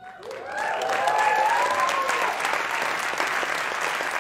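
Audience applauding, swelling over the first second, with a few voices whooping and cheering in the first two seconds.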